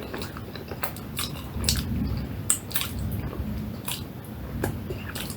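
Close-miked chewing of a mouthful of rice and side dishes, with irregular sharp wet mouth clicks.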